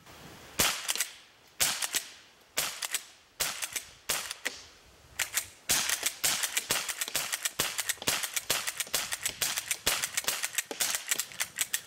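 FN-made Browning Trombone .22 pump-action rifle firing .22 Short rounds. A few shots come about a second apart, then from about six seconds in a rapid string of shots as fast as the pump slide can be worked.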